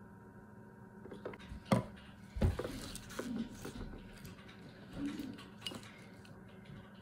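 A plastic spoon clicking and scraping against a glass dish while it stirs colouring into slime, in short irregular spells. About two seconds in there is a sharp click and a dull thump.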